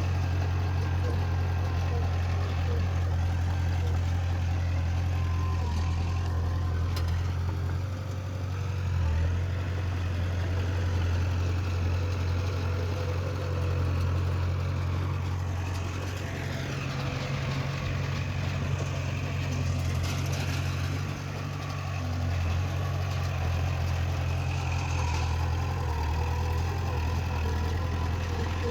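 Heavy diesel engine running steadily with a strong low hum, dipping briefly a couple of times.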